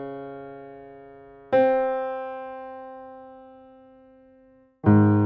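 Slow solo piano music: held chords, each struck once and left to ring and fade, with a new chord about a second and a half in and another near the end.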